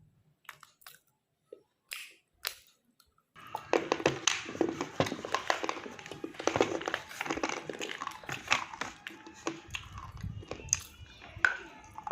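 A person biting and chewing a hard, brittle chalky substance with a crunch. A few faint clicks at first, then dense, continuous crunching from about three seconds in.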